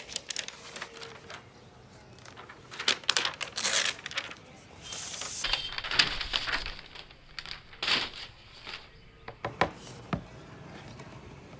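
Rustling and crinkling of the soft paper protective wrap of an Apple MacBook Air M2 as the laptop is slid out of it and handled, broken by irregular light clicks and knocks as the laptop is set down on the tabletop.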